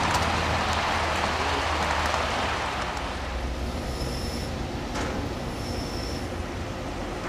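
Large-scale (1:29) garden railroad freight train with ball-bearing metal wheels rolling along outdoor track: a steady rolling rumble that eases off after about three seconds, with two short high squeals later on.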